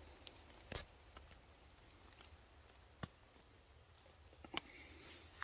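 Near silence with a few faint, short ticks and light cloth rustling as a needle and thread are worked through a wool blanket.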